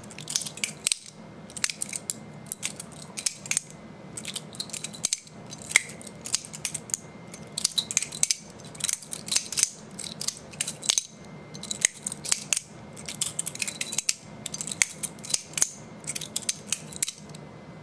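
Cudeman balisong (butterfly knife) being flipped by hand: its metal handles and blade clicking and clacking against each other in quick, irregular runs of sharp clicks.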